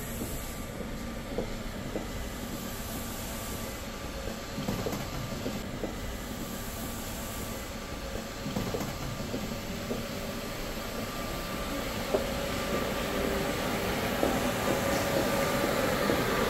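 Wheels of a rolling cabin suitcase trundling over a hard floor, with scattered small clicks, over a steady background hum that grows louder near the end.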